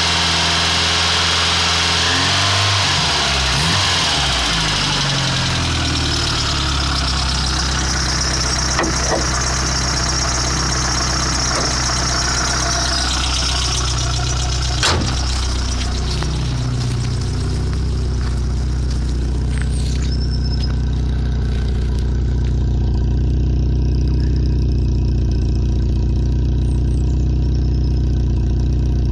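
VW Polo 86C's 45 PS four-cylinder petrol engine (AAU) running with a rattle, mostly at a steady idle, its pitch shifting briefly a few seconds in. A couple of short sharp clicks are heard midway.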